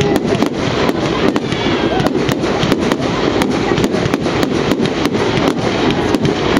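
Fireworks display: a continuous string of sharp bangs and crackles, several a second, over a dense steady rumble of bursting shells.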